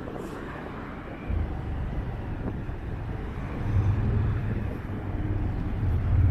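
Roadside traffic noise, with a heavy low rumble that sets in about a second in and swells twice, as of a large vehicle passing close by.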